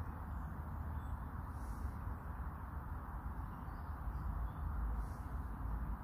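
Steady outdoor background noise with a low rumble and hiss, and a few faint, distant bird chirps.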